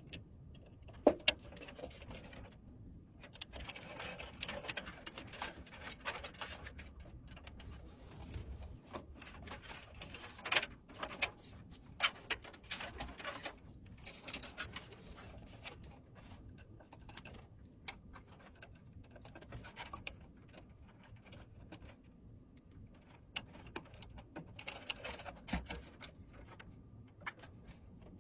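Scattered clicks, taps and rubbing as computer parts are handled and fitted by hand, with a few sharper knocks.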